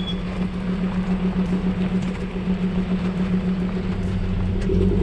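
Motor vehicle driving along a dirt track: a steady engine drone with road and tyre noise.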